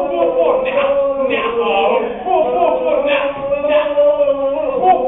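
Boys' voices singing and chanting a cappella: a held, shifting sung note with rhythmic vocal lines over it.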